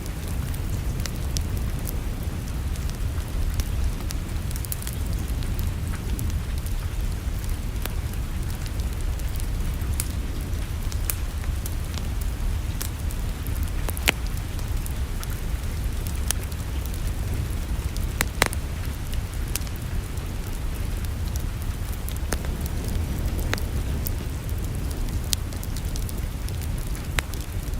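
Wood fire crackling in a fireplace: scattered sharp pops and snaps over a steady low rumble. One louder pop comes about halfway, and another a few seconds later.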